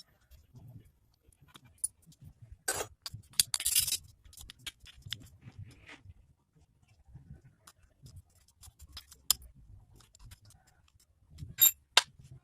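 Scattered clicks and metallic clinks of tools and engine parts being handled during motorcycle engine assembly, with a cluster of louder knocks about three seconds in and two sharp knocks near the end.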